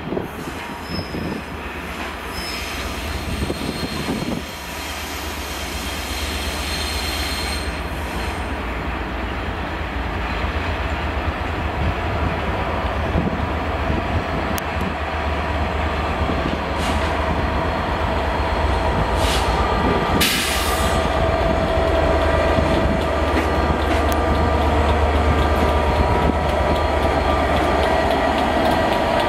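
Class 67 diesel locomotive running as it draws its coaches slowly in and passes close, its engine hum growing steadily louder. Wheels squeal on the curved track for several seconds near the start, and there is a short hiss about twenty seconds in.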